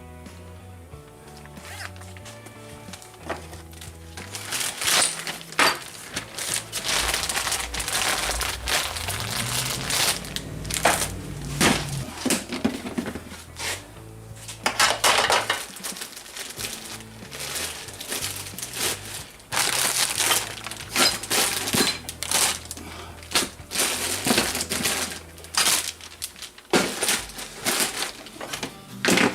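Background music with a bass line stepping between notes, with many sharp, irregular knocks and clatters over it.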